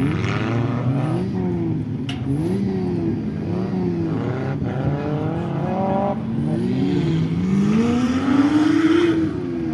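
An off-road 4x4 competition vehicle's engine revving up and down in repeated swells of about a second each, with a longer, higher climb near the end, as it is driven through the course.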